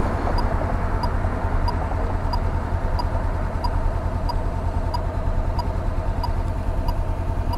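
Honda CB500X's parallel-twin engine running steadily, with a faint regular tick about one and a half times a second.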